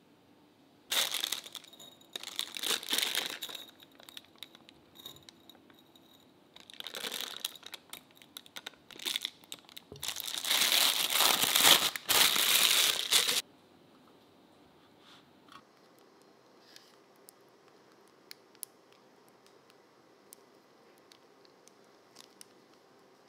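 A disposable plastic piping bag crinkles as it is handled over a jug and filled with batter, in three spells of crackling, the last and loudest ending a little past halfway. A few faint ticks follow.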